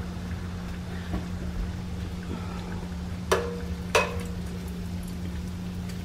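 Egg-battered sandwiches deep-frying in hot oil in a pan: a steady sizzle over a low hum. A metal slotted spoon clinks sharply against the pan twice, about three and four seconds in.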